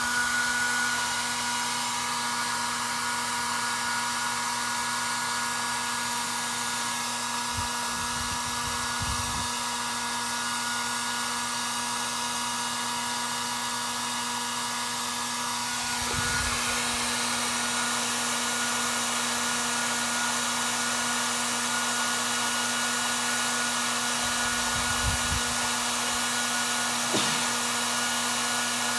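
Electric hot-air dryer blowing steadily, its motor whine holding a constant pitch, with a few soft low bumps along the way.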